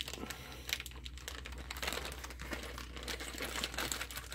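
Thin plastic parts bag crinkling and rustling as it is handled, with irregular small clicks and taps.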